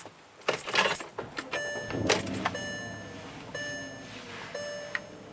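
Car keys jangling, then a Porsche's engine starting and settling into idle. A two-note warning chime repeats about once a second.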